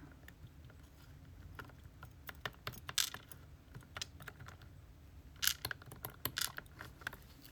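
Light, scattered metallic clicks and ticks of small parts being handled as an Abus C83 padlock's lock cylinder is worked on, with a short flurry of clicks about 3 seconds in and again about two seconds later.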